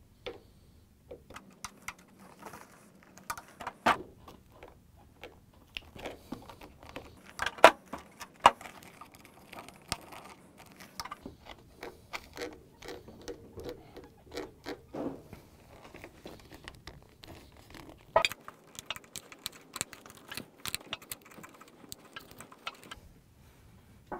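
A metal hand tool clicking and tapping against a refrigerator door's plastic liner as it pushes the edge of a new door gasket in underneath. The clicks are scattered and irregular, with a few sharper, louder ones.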